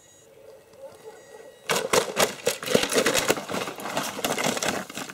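Dry leaf litter and twigs crunching and rustling underfoot. It starts suddenly about two seconds in as a dense, irregular crackle and stays loud from then on.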